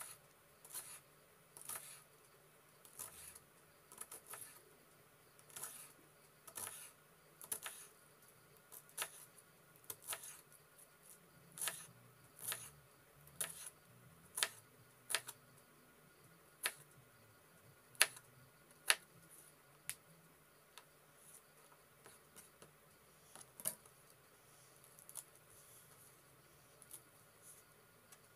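A chef's knife slicing a cabbage into thin shreds on a wooden cutting board. Each stroke gives a short, crisp crunch and tap of the blade on the board, about once a second, with a few pauses.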